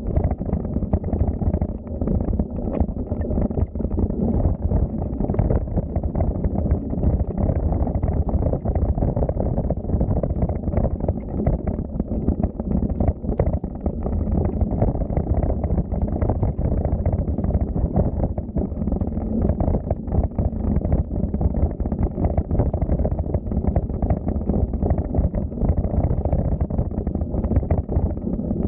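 Wind buffeting the microphone on a moving bicycle: a loud, unbroken low rumble that flutters constantly.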